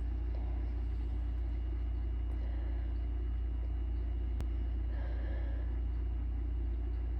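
Steady low hum of background noise at an even level, with a single faint click a little past the middle.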